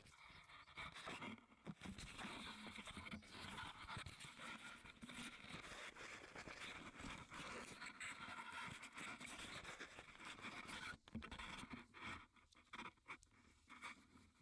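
Faint, continuous rustling and scratching with many small scrapes, like fabric or handling noise rubbing close to the microphone; it briefly drops out about eleven seconds in.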